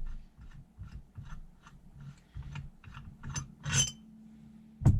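Clutch pulling bolt being unthreaded from a Can-Am X3 drive clutch: a string of light metallic clicks about two or three a second, a louder clatter a little after three seconds in, and a heavy knock near the end.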